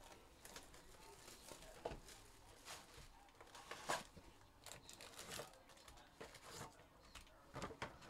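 A sealed trading-card hobby box being torn open by hand: faint, irregular crinkling and tearing of its plastic wrap and cardboard, with a sharper rip about two seconds in and another about four seconds in.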